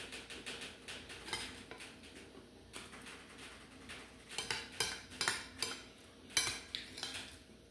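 Metal spoon clinking and scraping against a soup bowl while eating soup, with a run of sharper clinks from about halfway through.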